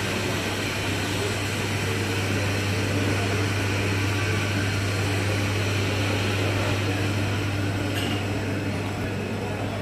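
Steady low hum and hiss of a supermarket's air conditioning and ventilation, with a faint click about eight seconds in.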